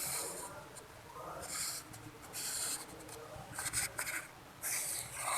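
A marker scratching across paper in a series of short strokes, with some paper rubbing.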